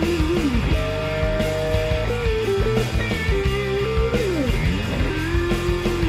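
Background instrumental music, rock-style with a guitar lead whose melody steps and bends in pitch over a steady low accompaniment.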